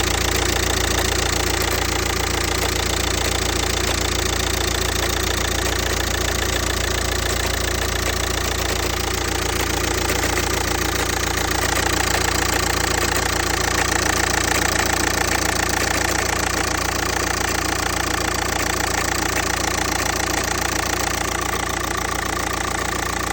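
Audi A3 8P 2.0 TDI (BMM) inline four-cylinder diesel engine running steadily at idle with a knocking noise, the knock whose source the owner is trying to find.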